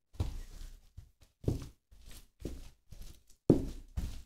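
High-heeled pumps stepping on fries and crushed burger scattered over a diamond-plate metal floor: about six separate heel-and-sole strikes, each with a short crushing tail, the loudest about three and a half seconds in.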